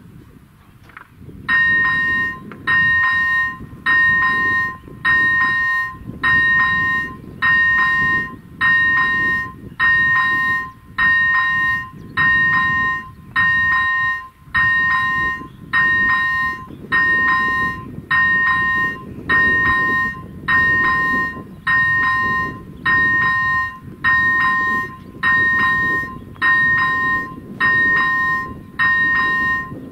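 AŽD ZV-01 electronic level-crossing bell starting about a second and a half in and ringing about once a second, each ring bright with a few steady pitches. It is the crossing's warning that a train is approaching.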